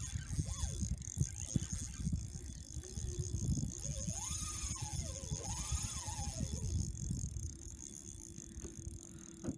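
Spinning reel rattling and clicking as a hooked redfish is fought, the reel's gears and drag working under the fish's pull. The rattling stops about seven seconds in.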